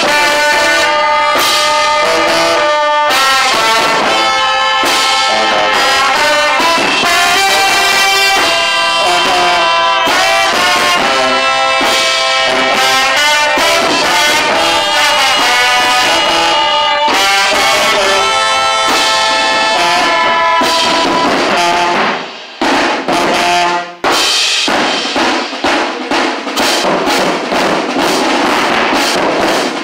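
Marching-band brass playing loudly: trumpet and trombone lines over sousaphone and saxophone. After a short break about three quarters of the way through, drums come in under the horns.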